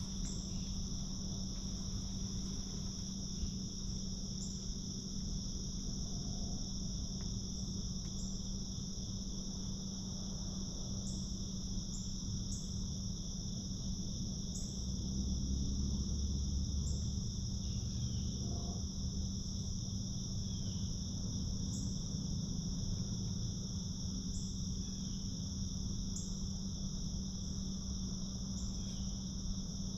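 Steady chorus of crickets and other insects, a constant high-pitched drone with faint short chirps every second or two.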